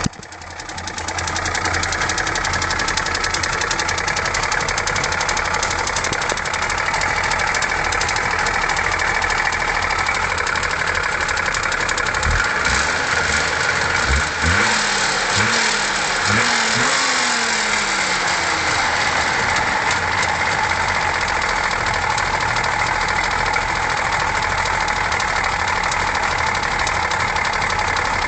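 Wartburg 353's three-cylinder two-stroke engine running hot at idle with a clear rattle, which the owner puts down to the middle cylinder. A few brief rises in pitch come around the middle.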